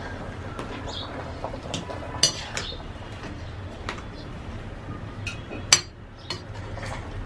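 Steel ladle clinking and scraping against a black metal wok while stirring greens and pork, a few separate sharp clinks, the loudest near six seconds in.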